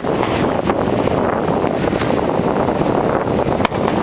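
Aerial fireworks bursting with a few sharp pops, the last one louder near the end, over steady heavy wind noise on the microphone.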